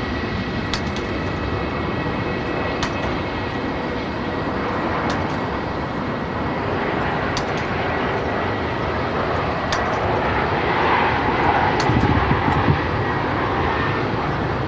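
Jet airliner engines running steadily, with a thin high tone over a broad rush, growing louder about ten seconds in.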